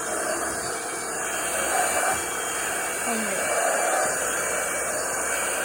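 Electric motor and fan, as in a vacuum cleaner, running steadily with a continuous whooshing hiss and a faint motor whine.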